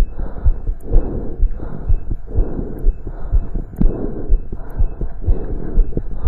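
Heartbeat heard through a stethoscope during exercise: quick, regular low thumps, about two a second, with a rushing noise swelling between the beats.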